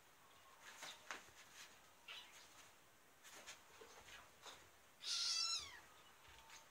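Faint soft scuffles and ticks of kittens moving about on a quilted futon, then about five seconds in a single loud cat meow, under a second long and falling in pitch.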